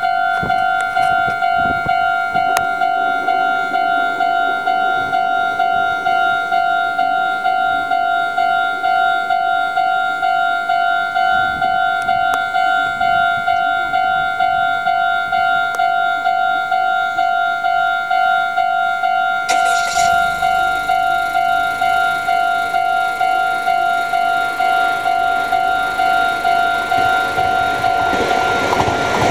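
Japanese electronic level-crossing warning bell ringing, a pitched ding repeating at a steady quick pace. Near the end the rumble of an approaching train rises under it.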